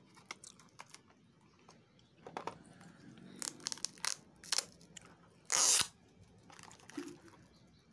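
Paper seal sticker being peeled and torn off a small cardboard product box, with scattered crinkles and clicks from handling the box. The longest, loudest rip comes about five and a half seconds in.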